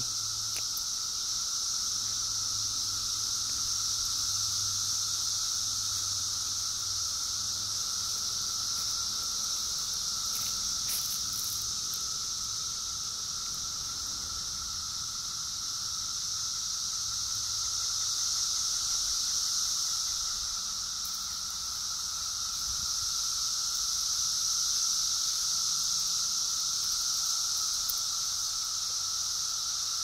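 Chorus of 17-year periodical cicadas: a continuous high-pitched drone with a fainter steady tone beneath it, swelling a little in loudness twice in the second half. This is the din that people mistake for a distant car alarm.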